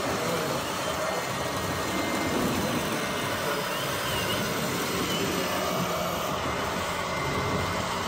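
Radio-controlled model construction machines running, a steady mechanical whir with no pauses.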